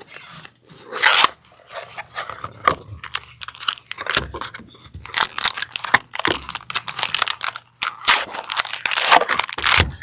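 Foil wrapper of a Magic: The Gathering collector booster pack crinkling and crackling in rapid, irregular bursts as it is pulled and torn open, a wrapper that is proving hard to open.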